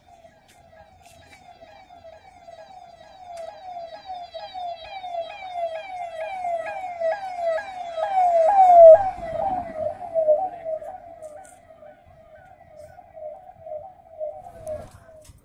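Electronic vehicle siren wailing in rapid repeated falling sweeps, growing louder as the vehicle approaches and peaking about nine seconds in with a short low rumble as it passes, then fading as it moves off.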